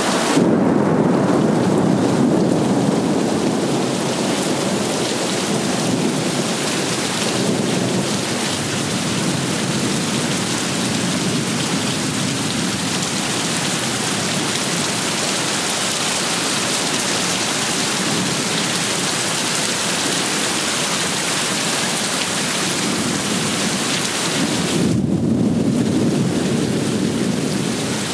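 Heavy rain pouring steadily, with a deep rumble of thunder swelling in at the start and again near the end.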